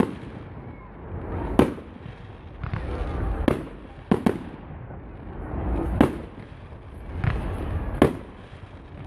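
Firework display shells bursting overhead in a series of about six sharp bangs, irregularly spaced one to two seconds apart.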